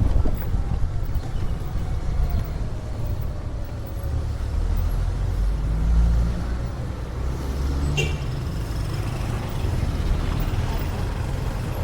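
Steady low rumble of motor vehicles, with a short sharp click about eight seconds in.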